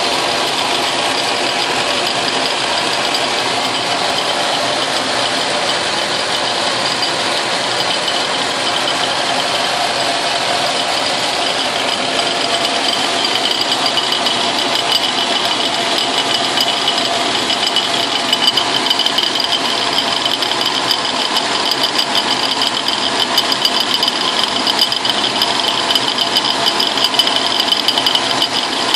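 Logan metal lathe running as a milling machine, its spindle turning an end mill that cuts a metal block fed on the cross slide: a steady machining whine with a fast rattle that gets stronger in the second half as the cut goes deeper.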